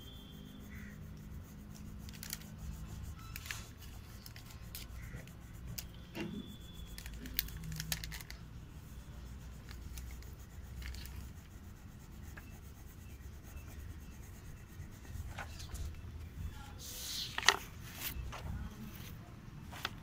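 Crayon scratching and rubbing on paper while a numeral is coloured in, with scattered small taps and scrapes and one louder, sharper sound about seventeen seconds in.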